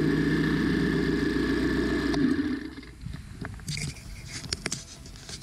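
Stihl FS90R string trimmer's 4-MIX engine running steadily, then shutting off a little over two seconds in, leaving only a few light clicks.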